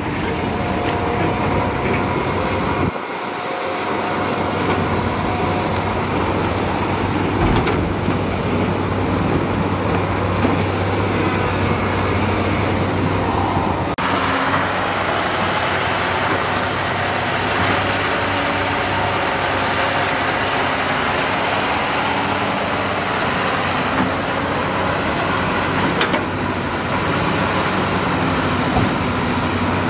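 Diesel engines of heavy earthmoving machinery running steadily with a continuous low hum. The sound changes abruptly twice, about three seconds and fourteen seconds in.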